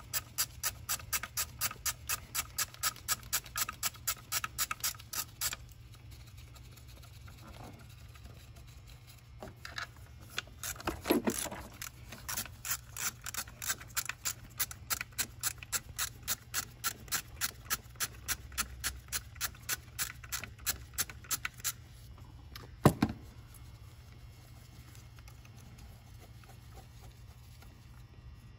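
Ratchet wrench clicking steadily, about three clicks a second, as 10 mm bolts are backed out. There are two long runs of clicking with a pause between them, a scraping clunk just before the second run, and a single sharp knock a little after it stops.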